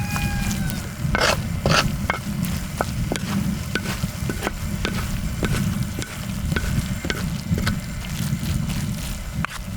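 Fried rice sizzling on a hot cast-iron cauldron lid while a spatula stirs and scrapes it, with frequent sharp clicks of the utensil on the metal over a steady low rumble.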